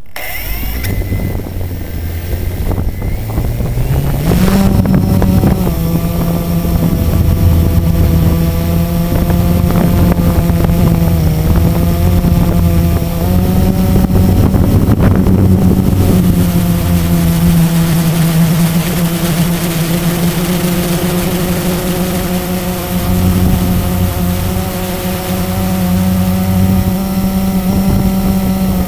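Blade 350 QX quadcopter's four brushless motors and propellers spinning up and lifting off, the buzz rising in pitch about four seconds in, then a steady hum with small shifts in pitch as it flies. Heard close up from the camera mounted on the quadcopter itself.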